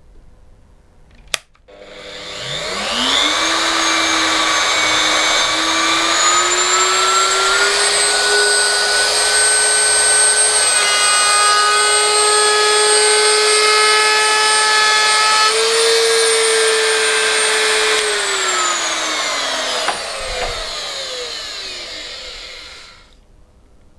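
Virutex FR156N laminate trimmer switched on with a click, spinning up to a steady high whine while trimming a board edge, its pitch stepping up slightly a couple of times. About 18 seconds in it is switched off and winds down. The freshly repaired motor runs normally.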